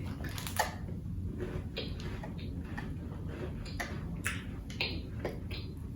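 Faint, irregular crunching clicks of someone chewing a crunchy cookie.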